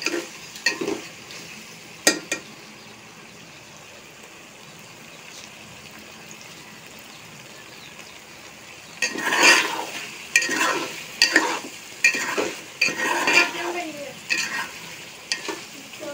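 Peas and potatoes sizzling as they fry in oil in a metal pot, with a metal spoon scraping and knocking against the pot as they are stirred. The stirring is sparse at first and then becomes busy and continuous from about halfway through.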